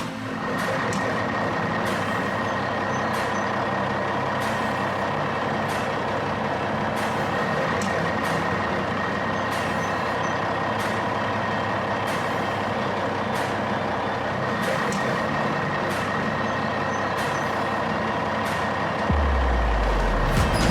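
Heavy truck engine sound effect, running steadily with a faint whine and scattered light clicks. Low bass-heavy music comes in near the end.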